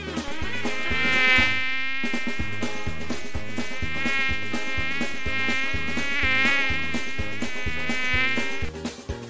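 A long, insect-like buzzing drone whose pitch wavers up and down, held for about eight seconds over background music with a steady drum and bass beat, then cut off suddenly near the end.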